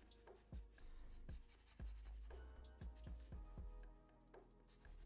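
Faint, short scratchy strokes of a black ink pen on paper, sketching fur lines, with soft background music.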